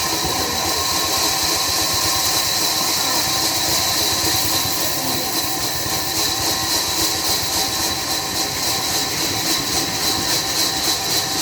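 Sawmill machinery running: a loud, steady hiss over a steady hum. From about six seconds in, the sound pulses evenly, several times a second.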